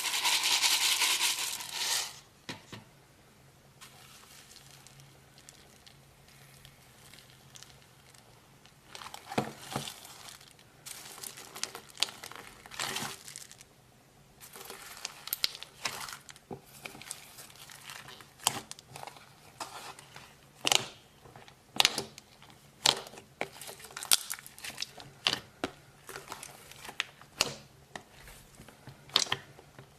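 Slime worked by hand: a loud crackling crinkle for the first two seconds, then quieter handling broken by sharp sticky pops and clicks, about one a second toward the end.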